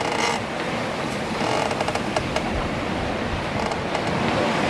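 Steady rushing noise aboard a two-masted schooner under way, with a few light clicks about a second and a half to two and a half seconds in.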